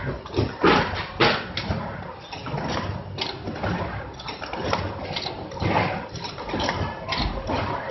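Box film-wrapping machine (2001-D) running, with irregular clatter, knocks and rustling over a low steady hum and a faint steady whine. The sharpest knocks come about a second in.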